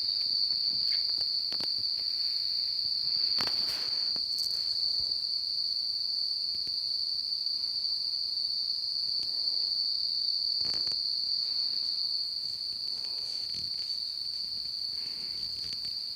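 Loud insect calls: one continuous, steady high-pitched trill with no pauses. A few faint knocks or clicks sound through it, and it grows slightly quieter near the end.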